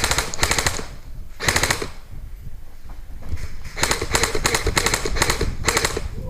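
Airsoft rifle firing full-auto in short rapid bursts: two bursts in the first two seconds, then after a short lull about four more in quick succession.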